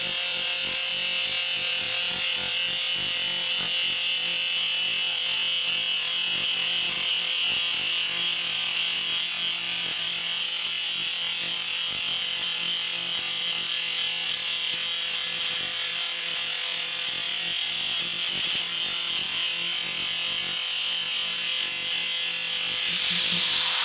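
Handheld angle grinder running steadily, its abrasive disc grinding the cutting edge of a steel lawn mower blade to sharpen it: a continuous motor whine under a hissing grind, growing louder near the end.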